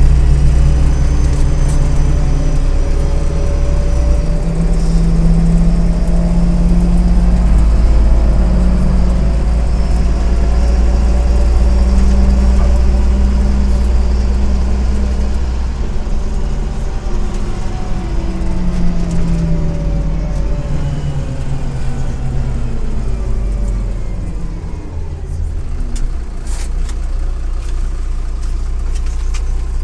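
Inside a MAZ-103 city bus on the move: a low engine drone with road noise, its pitch stepping and gliding several times as the bus drives on. It eases off a little near the end.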